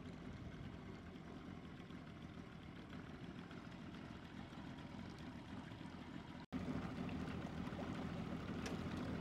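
A small aluminium boat under way on a homemade electric motor driven directly off solar panels: a steady low rumble of water and wind with the motor running. The sound cuts out abruptly about two-thirds of the way in and comes back louder.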